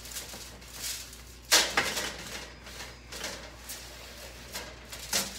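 An oiled paper towel rubbing and scraping over a metal wire roasting rack and the foil-lined sheet pan under it, in short strokes. About a second and a half in there is a sharp metal clatter, the loudest sound, as the rack is set back down on the pan.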